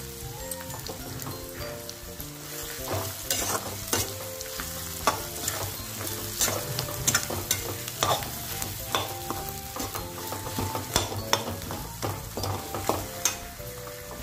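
Perforated steel skimmer stirring and scraping potato filling in a hot metal kadhai, with the food frying and irregular sharp metal-on-metal clinks and scrapes against the pan.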